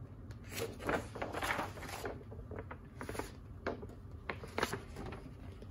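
A stiff printed paper sheet rustling and crinkling as it is held and bent, with several light clicks in the second half.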